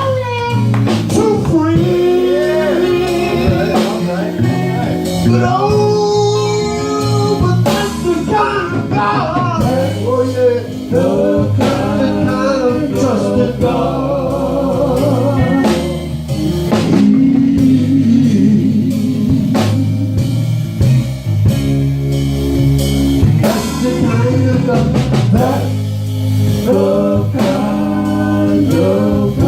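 Gospel song: voices singing over a band with guitar and drums.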